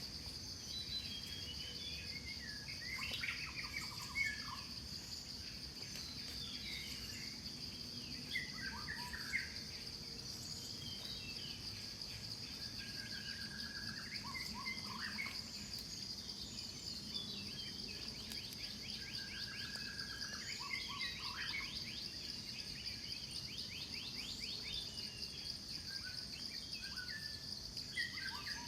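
A bird repeating the same short phrase of falling chirps about every five to six seconds, over a steady high-pitched insect drone.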